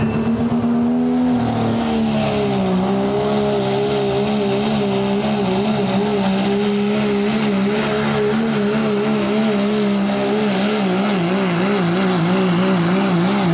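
Dodge Ram diesel pulling truck at full throttle dragging a weight-transfer sled, its engine holding one steady high pitch that sags a little about two seconds in as the load comes on. The pitch wavers up and down over the last few seconds as the truck labours near the end of the pull.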